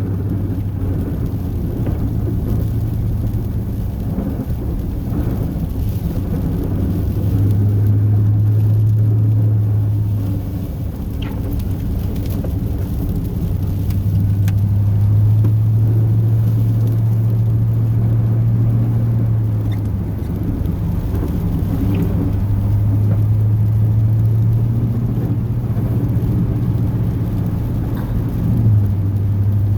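Chevrolet 8.1-litre Vortec big-block V8 running as the plow truck is driven, heard from inside the cab. It is a steady low drone whose pitch steps up slightly and back down several times as the throttle changes, over a rumble of road noise.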